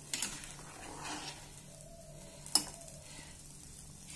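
A steel spoon stirring a simmering, bubbling curry in a pan, scraping and knocking against the pan, with one sharp clink about two and a half seconds in.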